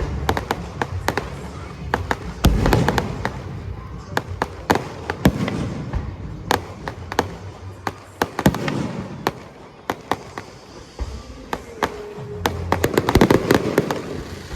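Fireworks going off: deep booms of shells every few seconds, with many sharp cracks and crackles between them, building to a dense flurry of bangs near the end.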